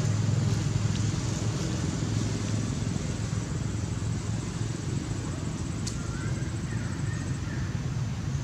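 Steady low rumble of motor traffic, with a single sharp click about six seconds in.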